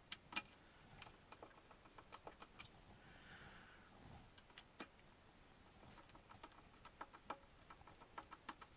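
Faint, irregular small clicks and ticks of a hand screwdriver and small machine screws being set loosely into a model truck's chassis brace.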